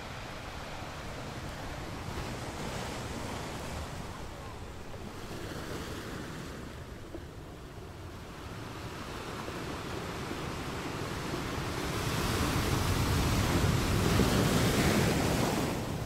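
Ocean surf: waves breaking and washing in a continuous rush that dips briefly about halfway through, then swells to its loudest as a larger wave comes in near the end.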